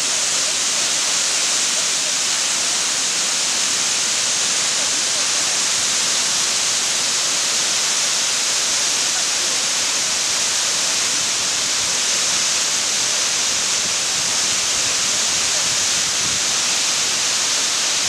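Two waterfalls pouring down rock ledges into a plunge pool: a steady, even rush of falling water with a bright hiss and no change in level.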